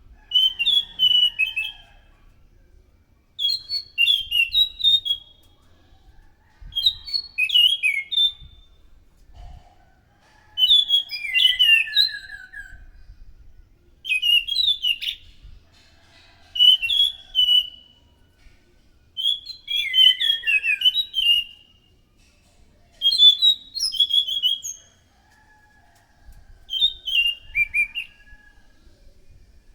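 A thrush of the kind sold in Indonesia as anis macan, singing loud repeated phrases of quick, clear whistled notes. Each phrase lasts about a second and a half, with some notes slurring downward, and they come at a regular pace about every three seconds.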